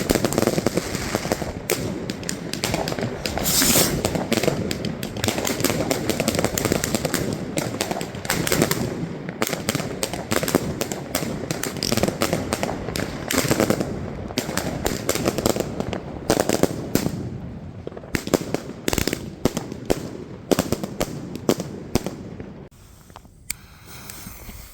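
Fireworks and firecrackers going off in a dense, rapid string of cracks and bangs, thinning out and growing quieter near the end.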